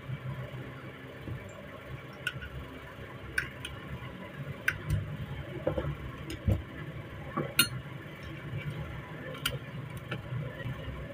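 Scattered sharp metallic clicks and taps, about ten and irregularly spaced, as a new hammer is fitted and worked without its spring in an AK-pattern rifle's receiver. A steady low hum runs underneath.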